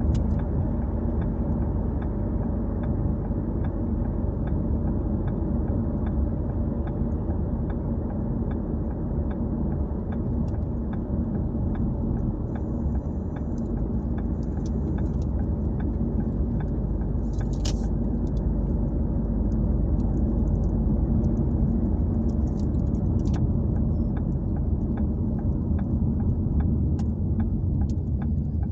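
Steady low rumble of a car driving along a city road, heard from inside the cabin: tyre and engine noise without speech.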